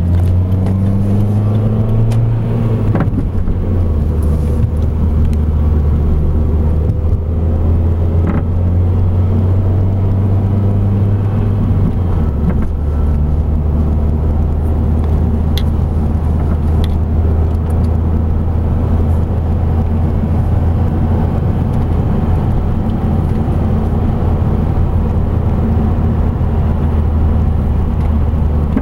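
Car running with a steady low drone whose pitch steps down about three seconds in and again near twelve seconds. A few short sharp clicks sound over it, about three, eight, sixteen and seventeen seconds in.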